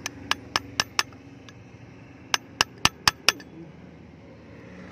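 Hammer striking a screwdriver that is used as a punch against a motorcycle's rear sprocket hub: sharp, ringing metal-on-metal blows in two quick runs of five, about four a second, with a pause of just over a second between the runs.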